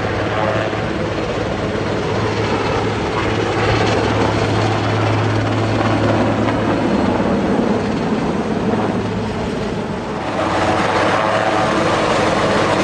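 U.S. Marine Corps VIP transport helicopter running with its rotors turning: a steady low rotor beat over turbine and blade noise. The sound dips briefly about ten seconds in, then comes back fuller.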